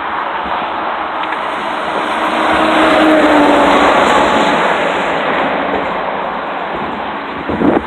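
Combine harvester running in a rice field: a dense, steady machine noise that swells about two seconds in and eases off again, with a faint whine over it and a short thump near the end.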